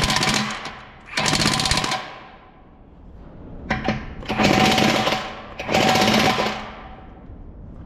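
Big cordless impact wrench hammering wheel nuts tight on a tractor's dual wheel rim, in four short bursts. Each burst cuts off by itself after a set number of hits, the wrench's clockwise setting on medium.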